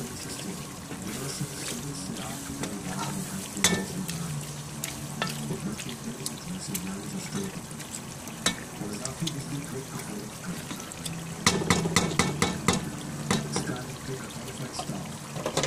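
Gourd and brinjal sizzling in oil in a pot while a wooden spoon stirs them. The spoon knocks against the pot now and then, with a quick run of knocks about two thirds of the way through.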